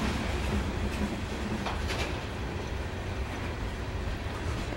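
Covered hopper cars of a freight grain train rolling past on the rails: a steady rumble of steel wheels on track, with a couple of sharp clicks about two seconds in.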